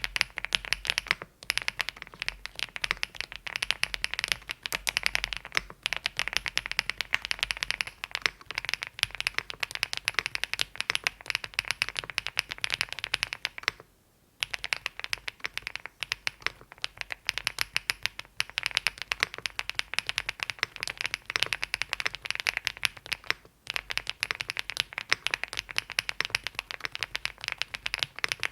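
Rapid, continuous typing on a WOB Rainy75 mechanical keyboard with HMX Violet linear switches and a PC plate: a dense stream of keystroke clacks, with a brief pause about halfway through.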